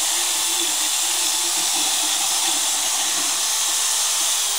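Motorized dental float (a drill-style power rasp) grinding down a horse's teeth, a steady, even grinding hiss.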